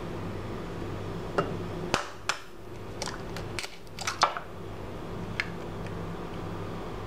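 An egg being cracked open one-handed over a water glass: a string of sharp clicks and taps of eggshell and glass, bunched together and loudest about four seconds in, over a low steady hum.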